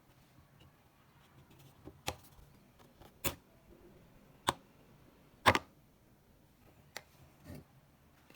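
Six short, sharp knocks on wood, spaced about a second apart, the loudest about five and a half seconds in; typical of wooden joinery pieces or hand tools being tapped and set down while working a mortise and tenon joint.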